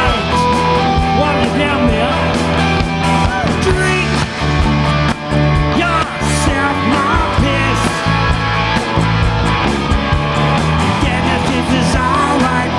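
Live rock band playing loudly: electric guitars, bass and drums, with a woman singing.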